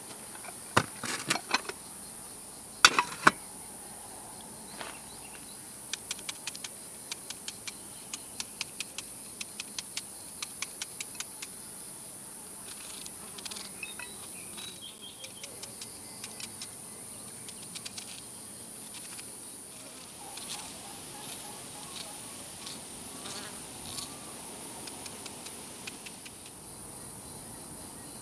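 A steady, high-pitched chorus of insects such as crickets in the background. A few sharp knocks come in the first few seconds, then a run of light ticks.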